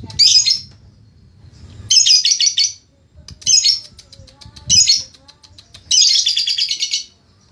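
Lovebird chattering in five quick bursts of rapid, shrill notes, the longest lasting about a second near the end.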